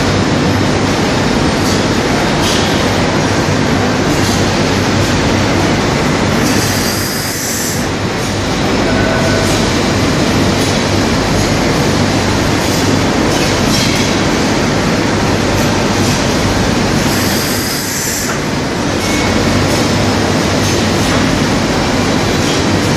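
Glass slab cutting machine running with a loud, steady mechanical noise and a low hum. It eases off briefly twice, about eleven seconds apart, as if between working cycles.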